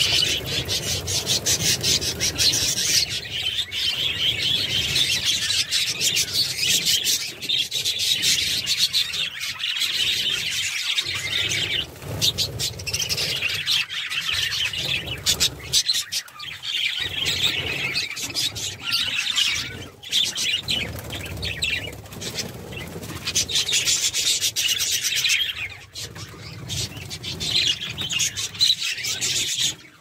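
A flock of budgerigars chirping and chattering all at once, a dense, continuous mass of high chirps.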